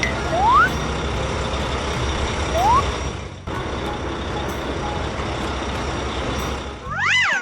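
Animated heavy construction truck's engine sound effect running steadily, with two short rising whistle-like tones early on and a brief drop-out a little past three seconds. Near the end a wavering pitched tone rising and falling starts.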